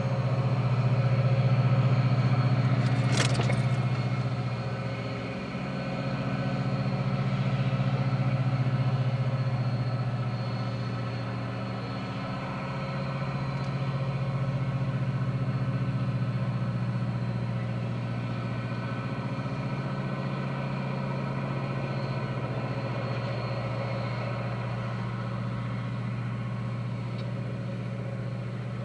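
Steady low hum of a car idling, heard from inside the cabin, while a freight train of loaded grain hopper cars rolls past at the crossing, the level slowly swelling and easing. A brief sharp sound about three seconds in.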